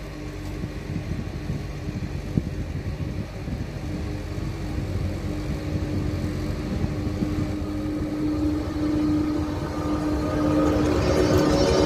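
RegioJet electric locomotive hauling a passenger train, arriving along the platform, growing steadily louder as it approaches. A steady hum runs throughout, and a higher whine joins in near the end as the locomotive draws alongside.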